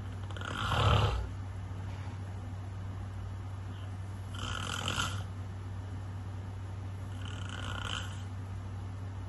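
A person snoring: three snores roughly three and a half seconds apart, the first the loudest, over a steady low hum.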